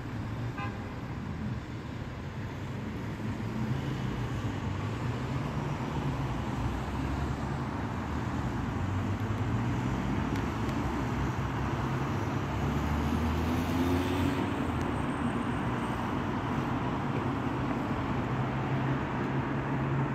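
Street traffic at night: passing cars' engines and tyres over a steady low engine hum. About two-thirds of the way through, one engine rises in pitch.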